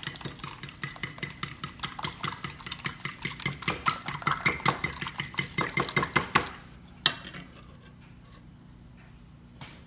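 A fork beating eggs in a ceramic bowl, clicking against the bowl in a quick, even rhythm of about six strokes a second, which stops about six seconds in; a single clink follows about a second later.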